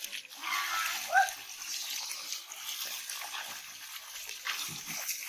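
Water splashing and sloshing in shallow muddy water, with one short rising call about a second in.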